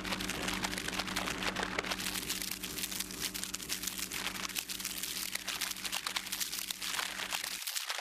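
Microwave oven running with a steady hum that cuts off sharply near the end, over dense crackling and popping from a mug of tea with a metal spoon in it. The crackling goes on after the hum stops.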